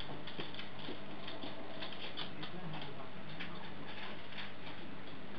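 Heavy rain falling steadily, splashing on wet paving slabs, with the many small sharp ticks of single drops landing.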